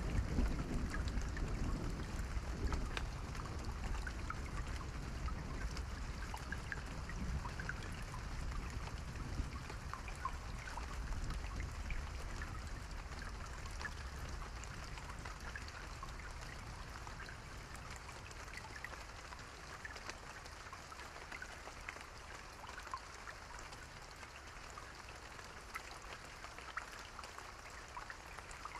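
Steady rain with distinct drops ticking. A low rumble of thunder at the start dies away over the first several seconds.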